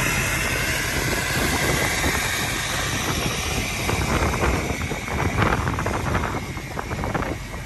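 Wind buffeting a handheld camera's microphone: a loud, even rumble and rush that turns gustier and more uneven in the second half.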